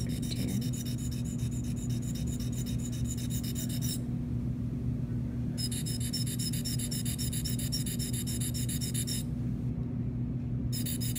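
Steel blade of a Nevi 2 dental sickle scaler scraping against a handheld sharpening stone in quick, even, rasping strokes as its cutting edge is sharpened. The strokes pause briefly about four seconds in and again about nine seconds in.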